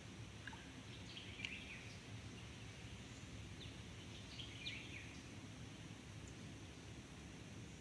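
Faint birds chirping: two short clusters of quick high notes, about a second in and again about four and a half seconds in, over a low steady rumble.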